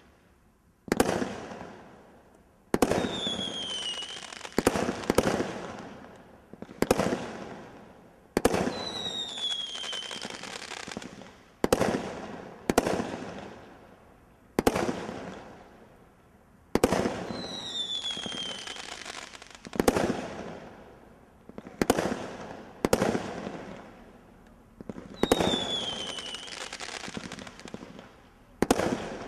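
Thunderstorm 61-shot combination Roman candle firework cake firing shot after shot: a sharp report every one to two seconds, each dying away. Four times a falling whistle rides over the shots.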